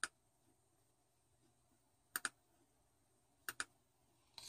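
Computer mouse button clicking: three quick pairs of clicks, one at the start, one about two seconds in and one about three and a half seconds in.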